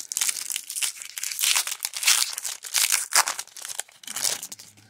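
Foil Magic: The Gathering booster pack wrapper being torn open and crinkled in the hands: a dense run of irregular sharp crackles that fades out at the very end.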